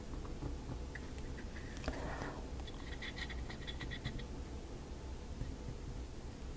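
Faint scratching and light clicks of small wooden model-kit pieces being handled and pressed into place, with a short scratchy rub about two seconds in, over a low steady hum.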